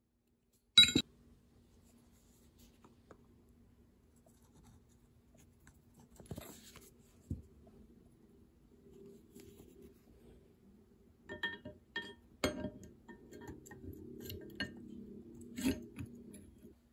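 A single sharp hammer tap on the steel pin in a Ridgid pipe wrench's housing about a second in, ringing briefly. Then light clicks and clinks of the wrench's steel hook jaw and knurled adjusting nut being handled and fitted, thickest in the last few seconds.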